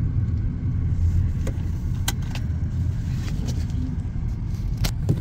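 Steady low rumble of a car heard from inside the cabin as it rolls slowly, with a few short light clicks and taps, two of them close together near the end.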